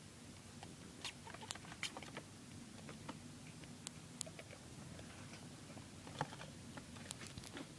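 Young pet rats scurrying and scratching in a homemade cardboard play box: scattered light clicks and taps at uneven intervals over a faint steady hum.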